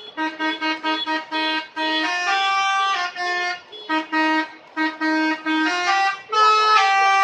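Bus telolet horns, multi-note air horns, playing a melody: quick runs of short toots that change pitch several times a second, with a few longer held notes and brief pauses between phrases.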